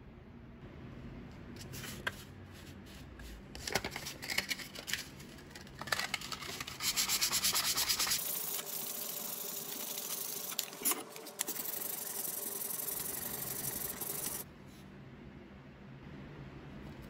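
Sandpaper rubbed by hand over the wooden handle of a carpenter's square, sanding off the old finish. Uneven back-and-forth scrubbing strokes give way to a steadier stretch of sanding that cuts off suddenly about two-thirds of the way through.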